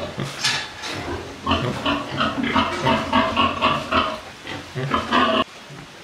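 Pigs grunting in a rapid run of short calls, about four a second, which cut off suddenly near the end.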